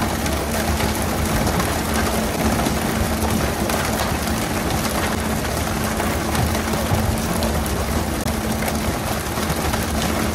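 Steady hiss of the boat's water sprays spattering onto the sea surface alongside the hull, over the steady hum of the vessel's engine.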